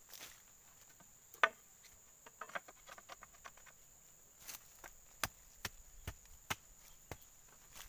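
A blade chopping into the bases of oil palm fronds: one loud strike about a second and a half in, a patter of small clicks, then about six sharp chops in the second half, as old fronds are cut away. A steady high-pitched insect whine runs underneath.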